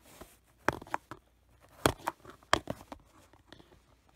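Packaging being worked open by hand and resisting: a run of sharp clicks, snaps and crinkles, loudest about two seconds in and again half a second later.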